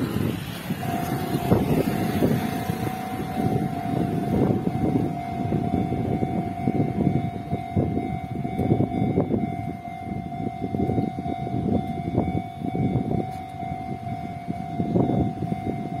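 Japanese railway level-crossing alarm starting about a second in and sounding steadily, warning of an approaching Enoden train as the barrier lowers. Beneath it is a low, uneven rumble of wind and passing cars.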